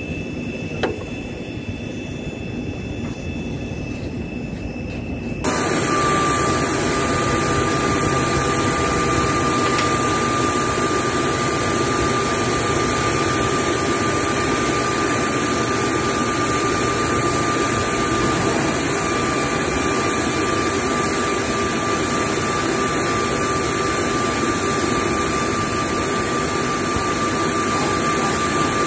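Aircraft gas turbine running steadily: a loud, even rush with a high steady whine. It jumps suddenly louder about five seconds in, then holds level.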